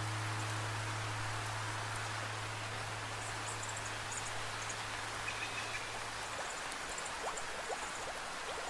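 Steady rainfall in a rainforest, with a low held drone tone, the tail of an instrument like a singing bowl, fading out about six seconds in. Short high chirps and quick rising animal calls sound over the rain in the second half.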